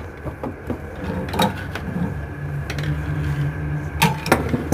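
Scattered clicks and knocks of a plumbing pipe fitting being handled and fed into place from below a workbench, over a steady low hum.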